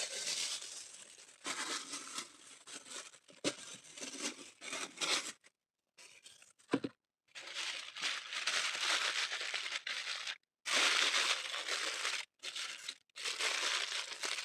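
Aluminium foil crinkling and crumpling in irregular bursts as it is wrapped tightly around a cut of meat, with several short breaks.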